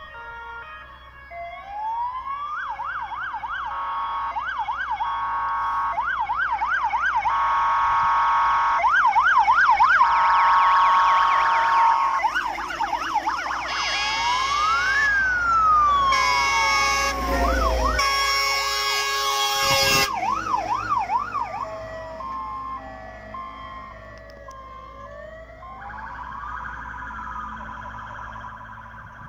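Fire engines' sirens on an alarm run: a fast yelping siren cycling several times a second and a slower wail that rises and falls, with steady blaring tones and engine rumble as the trucks pass about halfway through. The sirens grow louder, peak mid-way, then fade as the trucks move away.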